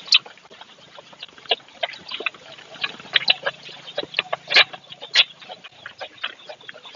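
A calf suckling at a cow's udder: an irregular run of short sucking and smacking sounds.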